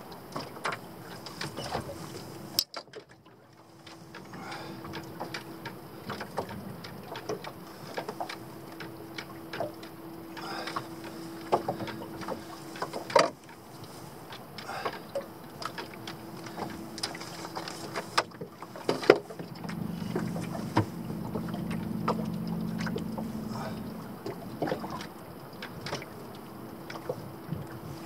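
Handling noise in a small fishing boat: scattered clicks and knocks of fishing tackle against the boat, with water sloshing at the hull. A faint steady hum runs underneath, and there are two sharper knocks partway through.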